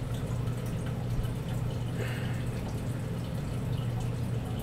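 Room tone: a steady low hum with faint hiss, no distinct event.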